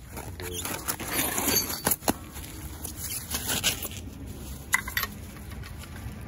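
Loose metal sockets and hand tools clinking against each other and on concrete as they are picked up and set down, with handling noise between. A few sharp metallic clicks about two seconds in and again around five seconds.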